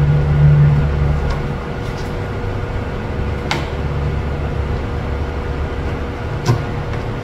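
Steady low mechanical hum with a faint steady tone, and a few light clicks as small screws are set by hand into pre-drilled holes in a wooden table panel.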